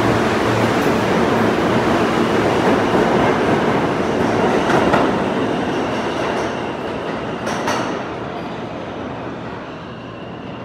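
R160 subway train pulling out of the station: its cars rumble and clatter past at close range, then the sound fades steadily as the train draws away down the tunnel. A few sharp wheel clacks are heard about five seconds and seven and a half seconds in.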